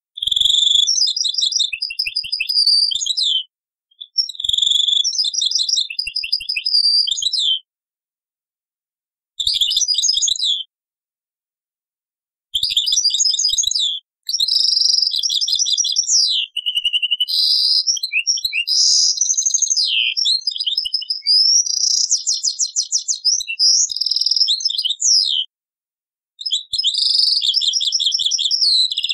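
European goldfinch singing: rapid high twittering and trilled phrases in runs of varying length, the longest about ten seconds, broken by short silences. It is an old cassette recording.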